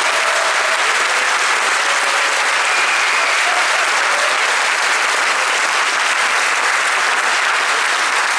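A large audience applauding steadily, a dense wash of clapping that holds at the same level without building or fading.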